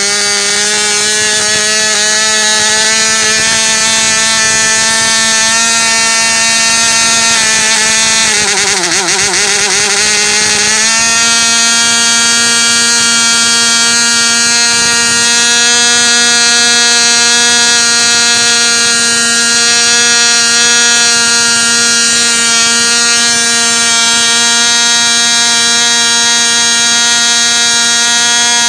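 Irvine 15 RE 2.5cc model diesel engine running at high speed on a test stand, turning an 8x6 propeller with a loud, steady, high-pitched buzz. About eight seconds in, its note sags and wavers for a couple of seconds, then picks up to a slightly higher steady pitch. It is running on standard diesel fuel and has not been leaned out to its maximum rpm.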